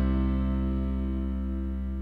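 Background music: a sustained guitar chord slowly dying away.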